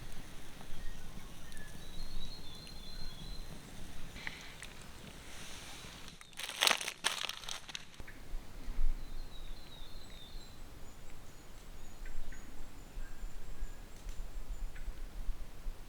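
Night bush sounds: faint series of short, high chirping calls from small unseen creatures, and a brief rustling crunch in the undergrowth about six seconds in.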